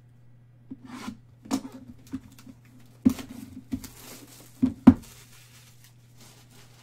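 A Topps Luminaries baseball card box being handled: picked up, turned over and set back down on a tabletop, giving scattered cardboard taps and knocks with some rustling, the sharpest knock about five seconds in.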